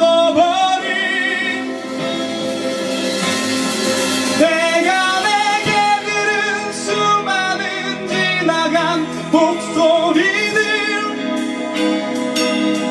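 Live band music: a male singer holds long, wavering vocal notes over electric guitar and drums, with cymbal hits near the end.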